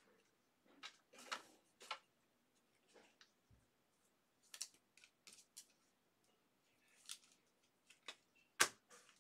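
Faint, scattered light clicks and rustles of trading cards and plastic card sleeves being handled, with one sharper snap near the end.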